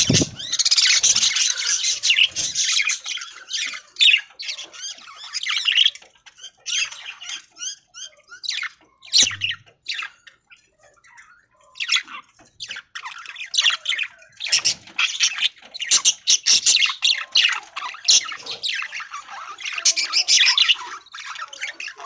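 Several budgerigars chattering and warbling in rapid high-pitched chirps, thinning to scattered chirps for a few seconds in the middle before picking up again.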